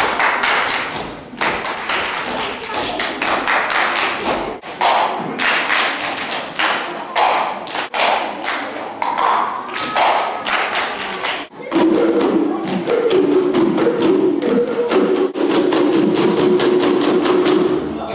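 Children's cup and object percussion: quick rhythmic taps and thumps, with plastic cups struck and slapped on the stage floor. About twelve seconds in, a melody joins over the beat.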